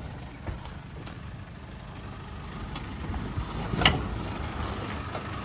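A four-wheel drive's engine running under load on a steep, rutted off-road climb as the vehicle struggles for traction. The rumble grows a little louder, and a sharp knock comes about four seconds in.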